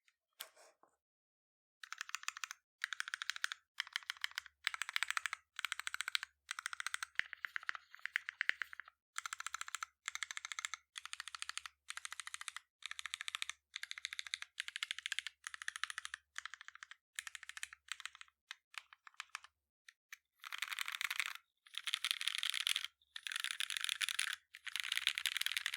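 Typing on an AEBoards Constellation 65% mechanical keyboard: lubed and filmed Retool Black linear switches on a 1.5 mm brass plate with no sound dampening, gasket strip mounted, under GMK keycaps. Keystrokes come in short, dense bursts with brief pauses between them, with a longer pause about three quarters through, then longer and louder runs of typing near the end.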